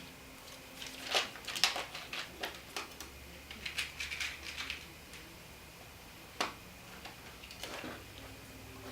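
Light, scattered clicks and rattles of small parts being handled, as a spade connector is picked out for a wire.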